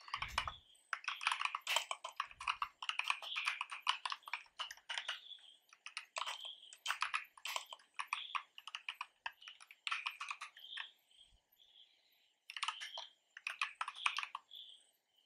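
Typing on a computer keyboard: quick runs of key clicks, a pause of about a second and a half late on, then another short run of keystrokes.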